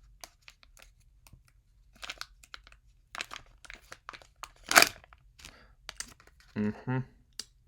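Kinder Joy egg packaging being torn open and crinkled, a run of sharp crackles and clicks of foil and plastic, with the loudest crackle just before five seconds in.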